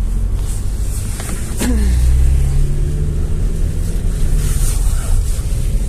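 Cabin noise of a GAZ-A68R52 GAZelle City minibus under way: a steady engine and road rumble. A short, sharp creak with a brief falling squeal comes about one and a half seconds in, and the low engine drone swells just after it.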